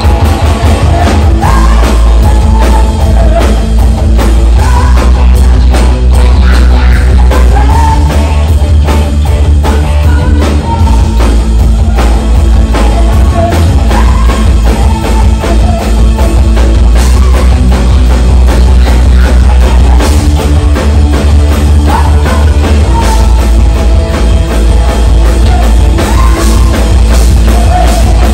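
Live rock band playing loud: a woman sings lead over electric guitars, bass guitar and a drum kit.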